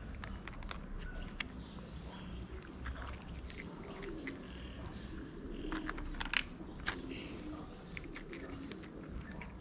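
Cat crunching dry kibble, with short, irregular sharp crunches and the loudest crunch a little past the middle. Birds chirp briefly a few times in the background.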